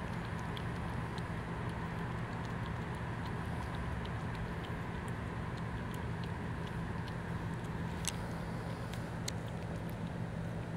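Cat lapping milk from a saucer: faint, quick licking ticks about twice a second, with two sharper clicks late on. A steady low mechanical hum sounds underneath throughout and is the loudest sound.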